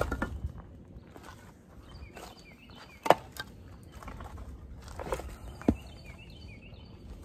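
Sparse wooden knocks from split pine firewood being chopped and handled. There is one sharp knock about three seconds in and two more around five seconds, with quieter shuffling and rustling between them.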